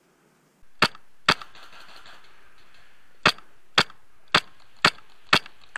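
Airsoft rifle firing single shots: seven sharp cracks, two about a second in, then five more evenly about half a second apart.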